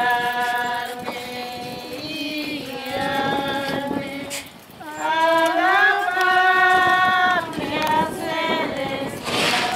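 Voices singing a slow song with long held notes that slide between pitches. Near the end comes a short rushing noise.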